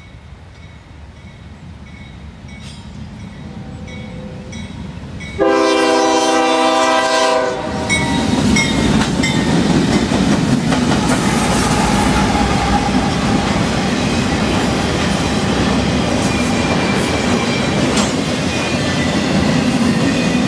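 CSX freight train with three diesel locomotives approaching slowly, the engine rumble growing louder, then one long horn blast about five seconds in. The locomotives then pass close, followed by the steady rumble of flatcars rolling on the rails.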